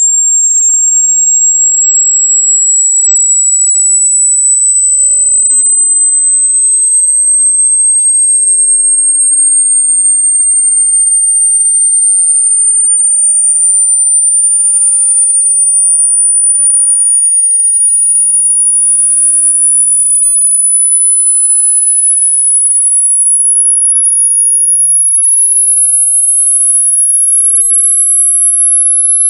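Loud, piercing synthetic pure sine tone, very high-pitched, climbing slowly and steadily in pitch in small steps, with nothing else under it.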